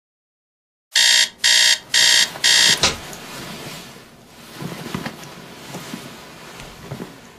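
Alarm clock beeping four times in quick succession, about two beeps a second, starting about a second in and then stopping. Soft rustling and a few light knocks follow.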